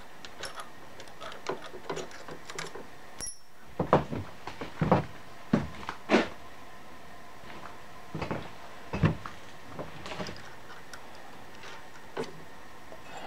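Scattered metal clicks and knocks from hands working a milling machine's keyed drill chuck while fitting a 1/4-20 tap. The louder knocks come near the middle.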